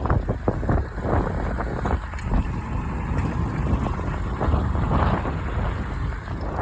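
Tractor engines running in a ploughing field, an uneven low rumble, with wind buffeting the microphone in short gusts.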